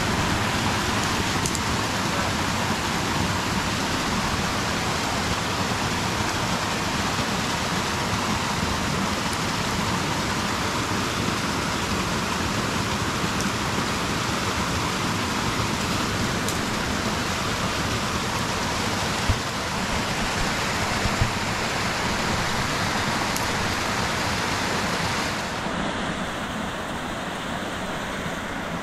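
Steady rush of water, an even hiss with no pitch, broken by two short knocks about two seconds apart roughly two thirds of the way through. A few seconds before the end it drops slightly and turns duller.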